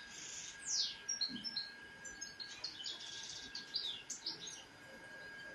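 A small songbird chirping and trilling in quick, high-pitched phrases, with short downward-sweeping notes and a fast trill near the middle. A faint steady high whine runs underneath.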